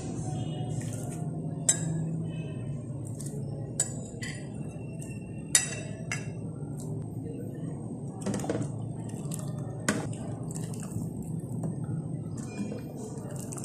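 Metal fork scraping and clinking against a plate as shredded chicken is pushed off it into a pot: several sharp clinks a second or two apart over a steady low hum.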